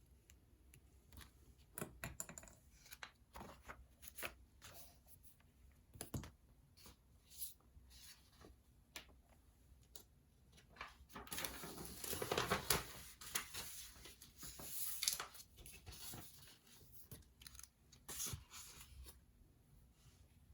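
Study-desk handling sounds: scattered small taps and clicks, with a longer stretch of rustling and scraping a little past the middle.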